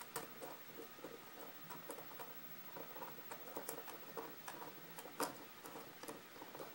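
Faint, irregular small metallic clicks and scrapes as a Kwikset KIK lock cylinder is taken apart with a slim metal hand tool, with one sharper click about five seconds in.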